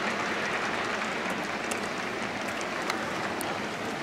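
Crowd applause: a steady patter of clapping with a few sharper claps standing out.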